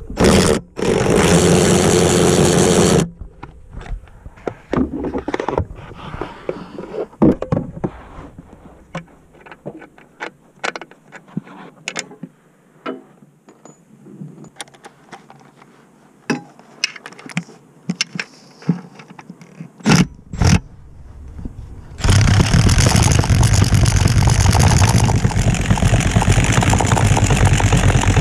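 Metal tools clinking, knocking and scraping during work under a car, with a short burst of a power tool at the start. Near the end a power tool starts and runs steadily, loud, driving a socket on an extension bar.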